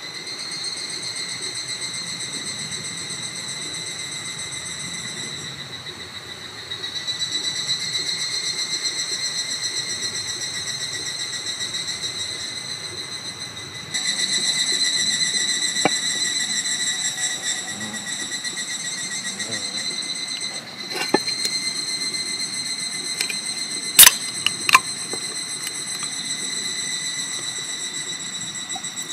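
Steady high-pitched insect chorus droning without a break, growing louder and softer at a few points. Two sharp clicks come close together near the end and are the loudest sounds.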